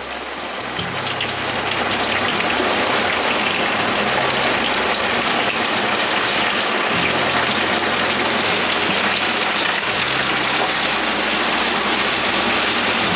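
Sliced onions sizzling in hot oil in a kadai. The crackle builds over the first couple of seconds as they are tipped in, then holds steady while they are stirred.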